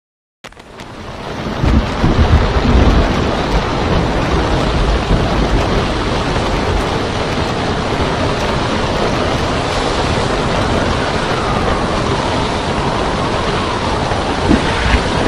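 Storm at sea: a steady roar of wind and waves over a heavy low rumble, loudest about two to three seconds in. A faint falling whistle comes near the end.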